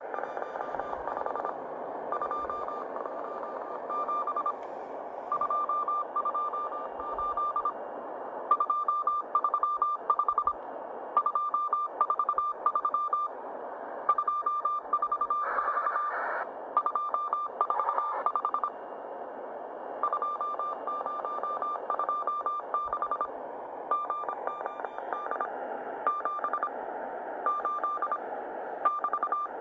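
Morse code from a Russian shortwave station on 5918 kHz, heard in upper sideband through a Sony ICF-2001D portable receiver: a steady single-pitched beep keyed on and off in groups of short and long elements, with short pauses between groups. It sits over constant band hiss, with crackles of static now and then through the middle.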